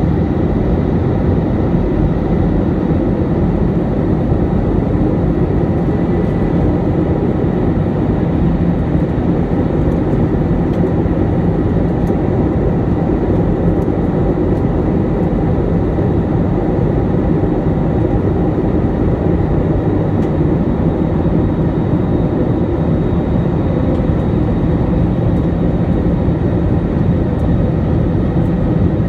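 Steady cabin noise of an Airbus A320 in flight, heard from a window seat over the wing while descending toward landing: the jet engines' drone and rushing airflow, with a faint steady high whine over it.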